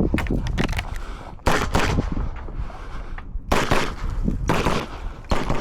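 CZ Shadow 2 9 mm pistol firing during an IPSC stage: sharp shots in quick pairs, with short pauses between the pairs.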